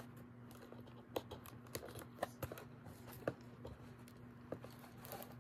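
Scattered faint clicks and taps, irregularly spaced, as a doll and its plastic packaging pieces are handled and unfastened.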